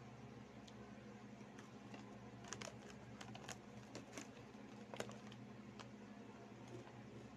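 Plastic Chick Boy snack bag crinkling as a hand reaches in, and chips crunching, heard as a cluster of short sharp crackles in the middle, the loudest about five seconds in, over a faint steady hum.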